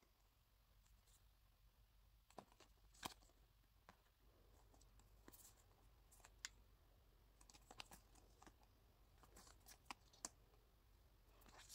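Near silence, broken by a dozen or so faint, scattered clicks and light rustles of stiff glossy photo strips being handled and shuffled.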